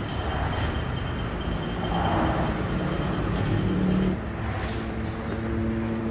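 Road traffic noise with a motor vehicle's engine running close by; its steady hum becomes clearer about two-thirds of the way in.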